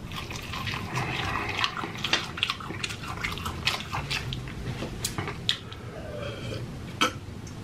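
Crispy fried chicken being chewed and crunched, a run of irregular crunches and clicks.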